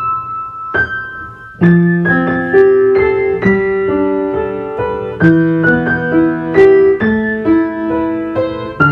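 Piano music: a few single held notes, then from under two seconds in a fuller melody with chords.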